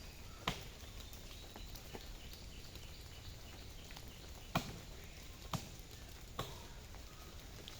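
Axe blows striking a tree trunk: several sharp, separate chops about a second apart, the loudest about halfway through, with quieter strokes between them.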